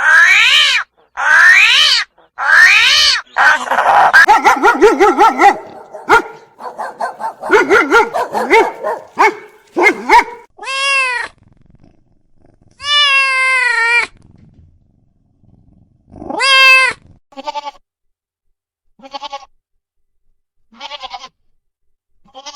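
A sequence of different animal calls, one after another: wavering, pitched cries, a stretch of low grunting in the first half, and a few short calls spaced apart near the end.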